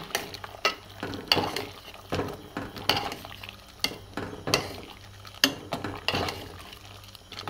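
A metal ladle stirring a brothy bamboo-shoot soup in a metal pot, with irregular clinks and scrapes of the ladle against the pot.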